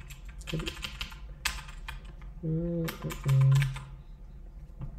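Typing on a computer keyboard: quick runs of key clicks through the first two seconds and again around three seconds. A man's voice sounds briefly, without clear words, around the middle.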